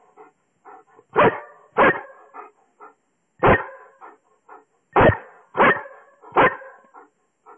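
Long-haired German Shepherd barking: six loud single barks at uneven spacing, with softer short sounds between them.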